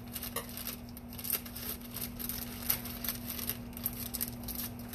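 Scissors snipping open a plastic bag of cake mix, with the bag crinkling: a few short, sharp snips and rustles over a steady low hum.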